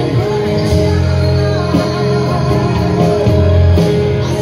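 A live Mandarin pop song played by a band through a PA system, with a singer's voice over guitar and steady held chords and bass.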